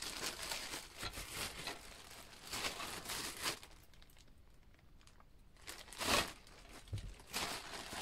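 Clear plastic bag crinkling and rustling as it is handled and opened, in bursts for the first few seconds, then a quieter pause, then a loud rustle about six seconds in and more crinkling near the end.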